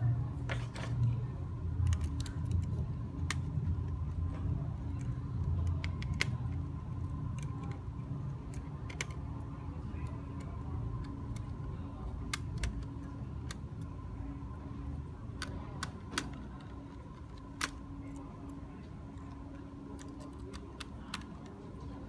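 Scattered small clicks and taps of hands working inside a laptop: cables and connectors unplugged from the motherboard and parts handled on the chassis, over a low steady hum.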